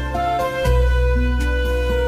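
Background music: held melody notes over a bass line that changes note about once a second.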